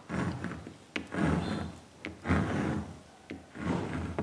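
Pencil point scratching across stretched canvas in about four rasping strokes, roughly one a second, with a few sharp taps in between.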